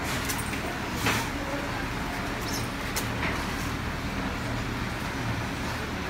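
Steady workshop background hum and noise, with a few sharp small clicks, the loudest about a second in, from hands handling the connector parts and wires.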